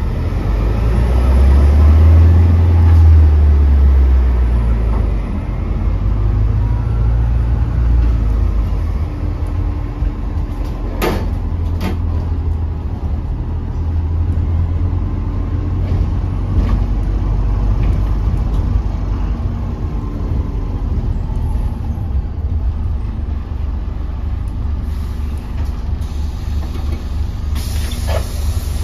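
Interior noise on the upper deck of a Volvo B5LH hybrid double-decker bus on the move: a steady low drone from the driveline, loudest in the first few seconds. A couple of sharp knocks or rattles come about eleven seconds in, and a short hiss near the end.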